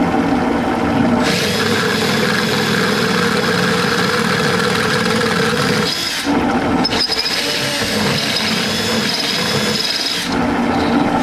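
Cordless rotary tool running at high speed, its brush worked against a small part turning in a three-jaw chuck to hand-finish it: a steady high whine over a lower machine hum, the high whine dropping out briefly twice.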